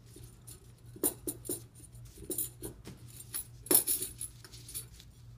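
Stainless steel grill rods of a Grilliput portable grill clinking and rattling as they are worked loose from the end rods during disassembly: scattered light metallic clicks, the loudest a little under four seconds in.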